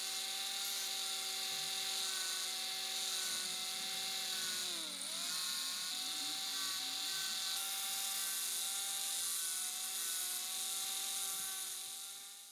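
Small electric motor spinning a sanding disc with a steady whine and a hiss of abrasive on metal as a small lighter part is ground against it. About five seconds in the motor's pitch briefly drops under the load, then picks back up.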